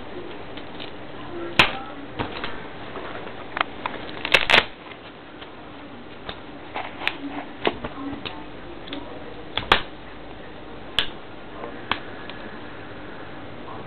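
About a dozen irregular sharp clicks and knocks from folding pocket knives and tools being handled, a blade snapping shut. The loudest cluster comes about four and a half seconds in.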